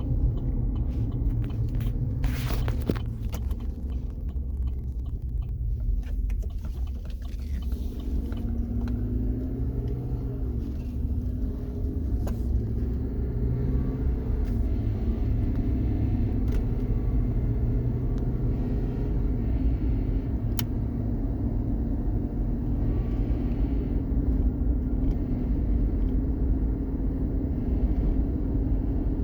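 2016 Chevrolet Silverado underway, with a steady low road rumble and a whine from under the truck that rises and falls in pitch as the speed changes.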